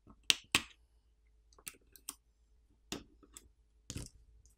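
Small sharp clicks of a plastic pry tool popping a flex cable connector and coaxial cable connectors off a smartphone's subboard. Two clicks come close together near the start, then a few fainter ones later.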